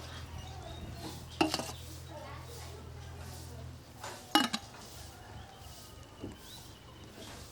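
Dishes and utensils knocking together while being washed: two sharp clatters with a brief ring, about three seconds apart, over a low steady hum that stops shortly before the second clatter.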